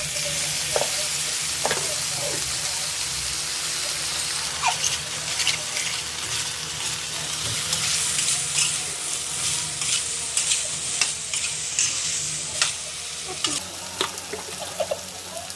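Vegetables sizzling steadily in a hot frying pan just after a little water has been added, while a spatula stirs them and now and then knocks and scrapes against the pan. The sizzle is strongest about halfway through, then eases off near the end.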